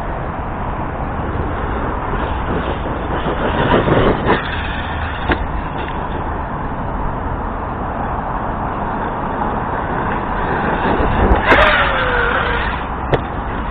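Arrma Kraton RC truck with its stock brushless system being driven, its motor and drivetrain running over a steady noisy background. Near the end a short whine falls in pitch as the motor winds down.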